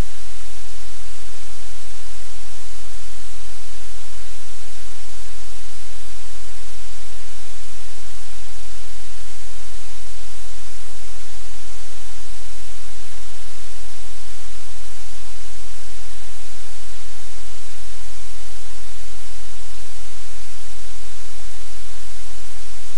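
Steady, loud static hiss that does not change, with no other sound standing out from it.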